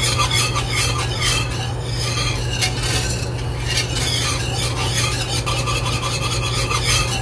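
Metal wire whisk scraping around a skillet of thickened roux gravy in rapid, irregular scratchy strokes, over a steady low hum.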